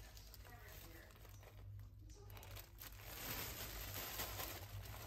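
Thin plastic bag crinkling as it is handled, louder from about three seconds in.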